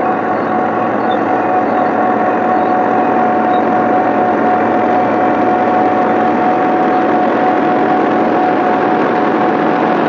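Tractor engine running steadily while pulling a seed-and-fertiliser maize planter, with a thin steady whine over the engine noise.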